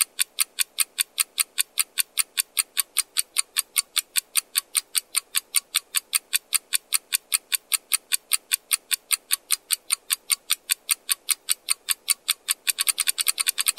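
Countdown-timer sound effect: rapid, even clock ticking at about five ticks a second, growing louder about a second before the end.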